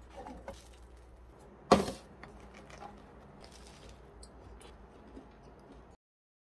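Crusty toasted baguette sandwich crunching as it is handled and bitten into: one loud, sharp crunch about two seconds in, with lighter crackles around it.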